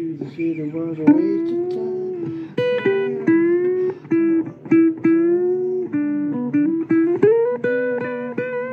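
Blues instrumental break between sung verses: a guitar playing a lead line of sustained, bent and sliding notes over a steady low accompaniment.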